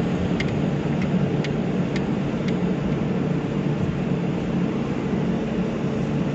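Car engine idling, heard from inside the cabin as a steady low hum. A regular sharp click sounds about twice a second during the first couple of seconds, then stops.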